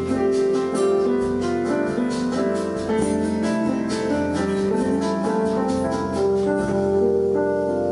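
Keyboards playing an instrumental piano passage of held chords and melody notes over a light, steady ticking beat.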